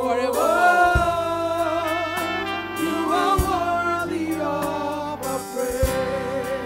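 Live gospel song: a woman singing lead into a microphone over electronic keyboard chords, with a low thud of a beat about every two and a half seconds.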